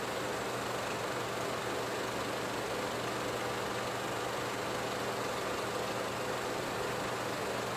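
Steady low hum with a constant hiss over it, unchanging throughout, with no distinct events.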